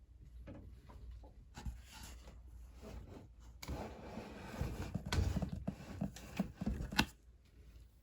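Cardboard being scraped and rubbed, soft at first, then a busier run of scratches and sharp knocks from about halfway in, ending with the loudest knock near the end.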